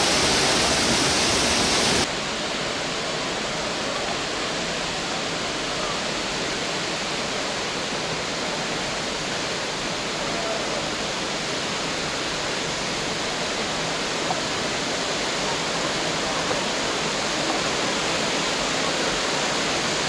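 Waterfall: a steady rush of falling water. About two seconds in it drops abruptly to a slightly quieter level, then carries on evenly.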